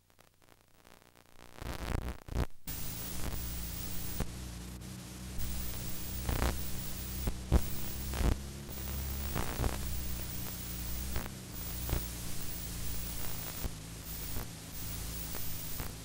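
Recording noise with no programme on it: a steady hiss over a low hum, with scattered clicks and pops. It is faint at first and comes up about two and a half seconds in.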